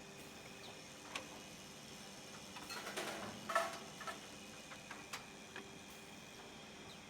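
Automatic two-head woodworking drilling machine running with a faint steady hum and a few sharp mechanical clicks, and a brief louder spell of clattering about three seconds in.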